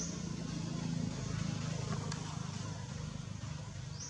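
Steady low hum of a running engine, with a faint short high chirp at the start and again near the end.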